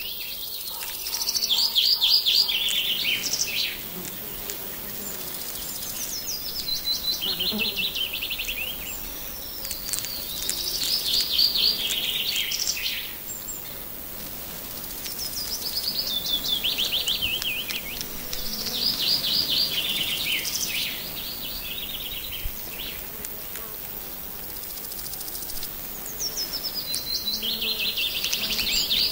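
A songbird singing: short phrases of quick repeated notes that fall in pitch, each two to three seconds long, repeated every few seconds with a longer pause midway.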